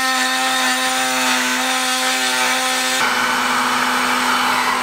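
Cordless heat gun running, its fan motor giving a steady hum under a rush of hot air, used to soften a hose end. About three seconds in the sound turns more to a rushing hiss.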